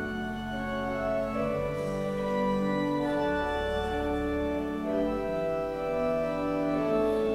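Organ playing slow, sustained chords over held low bass notes, the chords changing about once a second.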